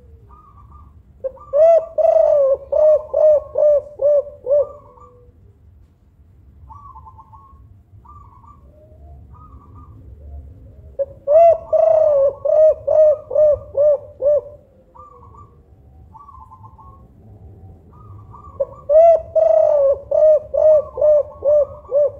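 Spotted dove (tekukur) cooing in three bouts of about eight quick, evenly spaced low coos, each bout lasting about three seconds and coming roughly every eight seconds. Fainter, short, higher calls fill the gaps between the bouts.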